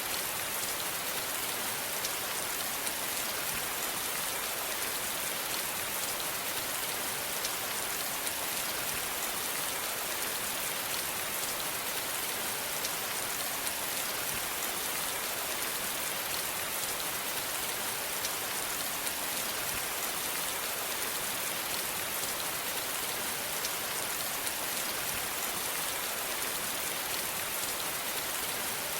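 Steady rain falling, an even hiss with many fine drop patters and no thunder.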